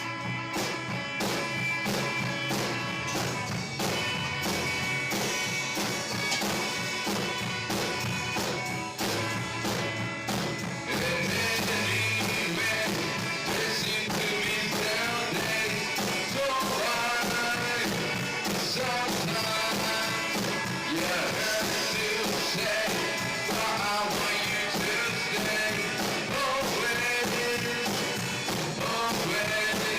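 Rock music: a guitar part over a bass line, with a fuller, louder band coming in about eleven seconds in.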